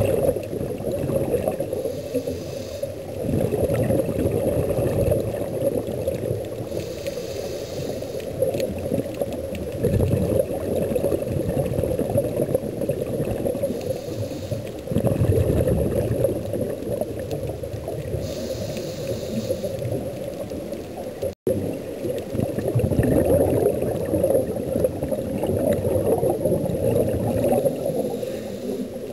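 Muffled underwater sound of scuba breathing on a regulator: a steady bubbling gurgle, with a hiss from the regulator on each breath every few seconds. There is a brief dropout about two-thirds of the way through.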